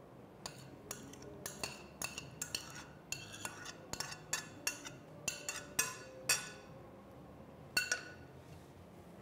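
A spatula tapping and scraping against a glass bowl as diced fruit is scraped out of it: a quick run of sharp clinks, some briefly ringing, over about six seconds, then one more near the end.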